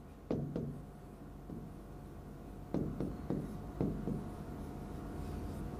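Stylus tapping and rubbing on the glass of an interactive touch-screen board as words are written: a run of short taps, the busiest stretch a little past the middle, over a faint steady electrical hum.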